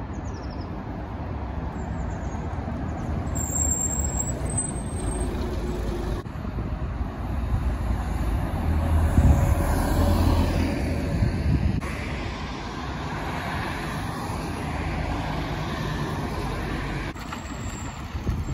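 2009 Scania OmniCity city bus driving past, its engine running with a low hum that grows loudest about halfway through, over road and traffic noise.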